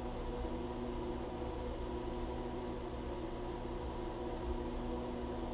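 A steady mechanical hum made of several held tones over a faint hiss, with no cuts or knocks standing out.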